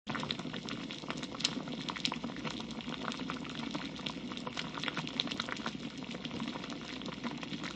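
Spicy red braising sauce of dakbokkeumtang (Korean braised chicken) bubbling at a steady boil in a pot, with many small pops of bursting bubbles.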